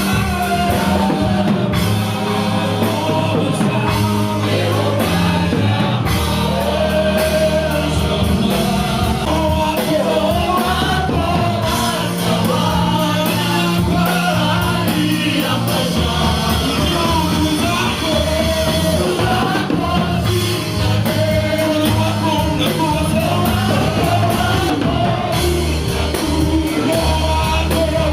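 Live gospel praise music: singers carrying a melody over a band with bass guitar and drums, playing steadily throughout.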